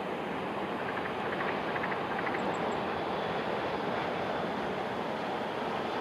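Tohoku Shinkansen bullet train passing at speed along an elevated viaduct. It makes a steady rushing sound that builds slightly in the first second and then holds.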